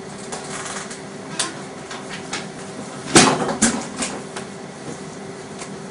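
A few knocks and clicks, with one louder thump about three seconds in, over a steady faint hum.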